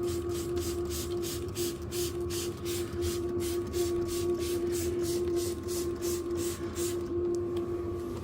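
Hand sprayer spraying Evapo-Rust rust remover onto rusted steel in quick squirts, about three a second, stopping about seven seconds in. A steady hum runs underneath.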